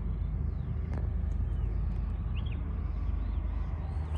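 Steady low rumble of the approaching TasRail diesel locomotive hauling an empty ballast train, with small birds chirping briefly over it.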